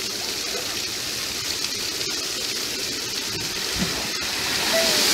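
Fountain water pouring down a stepped wall and splashing into a shallow pool: a steady rush that grows louder near the end.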